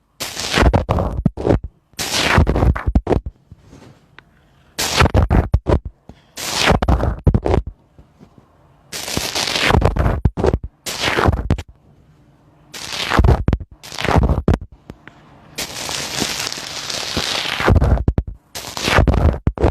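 Slime being squeezed and pressed by hand, crackling and popping in about ten separate bursts, each lasting a second or so, with short pauses between.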